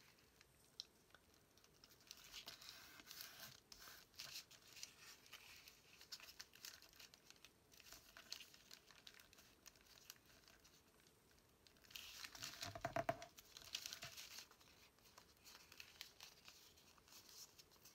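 Faint rustling and crinkling of paper being folded and creased by hand, with a louder stretch of handling about twelve seconds in.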